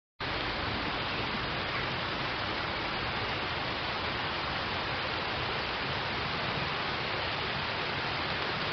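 Steady rain falling on a pond's surface, an even hiss that cuts in abruptly just after the start.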